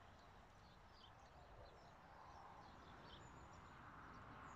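Near silence: faint riverside ambience with a few brief, distant bird chirps.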